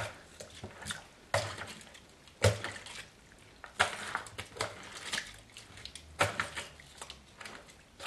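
Metal tongs stirring and turning raw chicken drumsticks in a bowl of soy-sauce and vinegar marinade: irregular clacks of the tongs against the bowl, about one a second, with wet sounds of meat and liquid moving in between.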